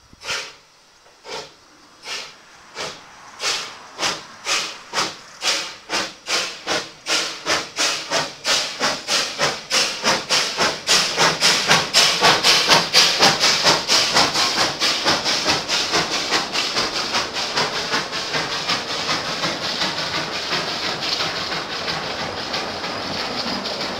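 Narrow-gauge steam locomotive Hoya pulling away with its train. The exhaust chuffs start a little over one a second and quicken to several a second, growing loudest as the engine passes close by. They then blend into the steady rolling clatter of the coaches and wagons going past.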